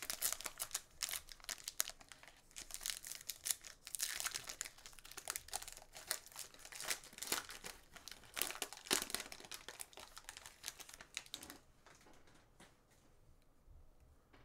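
Trading-card pack wrapper being torn open and crinkled by hand: a dense run of sharp crackles that dies down about eleven seconds in, leaving faint rustling as the cards are handled.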